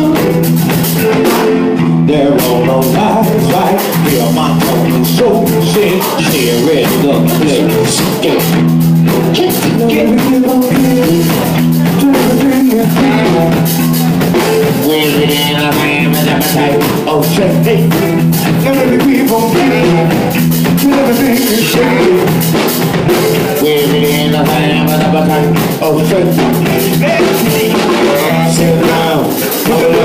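A band playing a bluesy soul song with a steady beat, led by drum kit and guitar.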